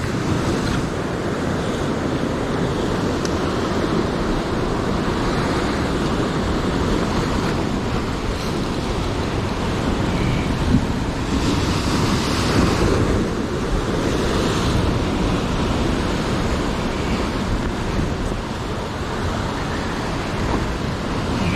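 Rough sea surf breaking and washing over shore rocks, with wind buffeting the microphone. A heavier wave surges louder about halfway through.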